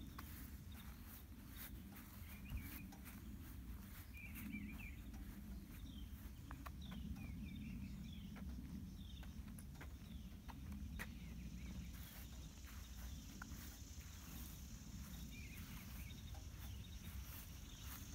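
Faint outdoor ambience: birds chirping in short calls every second or two, soft footsteps on a paved driveway, and a low rumble underneath. From about two-thirds of the way in, a steady high insect buzz joins.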